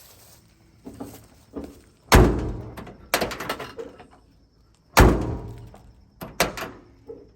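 Ford F600 pickup's cab door slammed shut twice, each a heavy metallic bang with a ringing tail, with lighter knocks of the handle and latch between. The newly repaired latch catches and holds the door shut.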